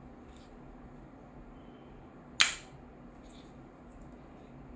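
Glock-shaped jet-flame lighter's spring-loaded pull-back slide snapping once, sharply, about halfway through. A faint click comes shortly after the start and another about a second after the snap.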